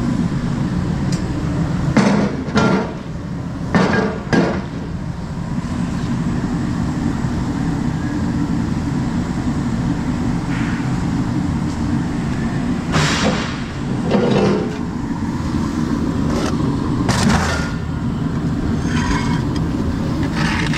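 Scrap metal clanking as aluminium wheels and a bucket of scrap pieces are set down on a steel floor scale: a few sharp clanks, in pairs about a couple of seconds in and again around the middle, over a steady low rumble of machinery.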